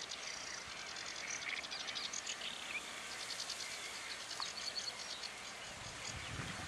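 Rapid, high-pitched chirping and ticking of small wild animals over a steady outdoor background hiss, with a low sound near the end.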